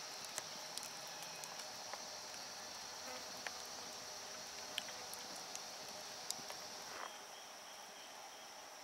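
Steady high-pitched chorus of forest insects, with a few scattered sharp clicks during the first seven seconds.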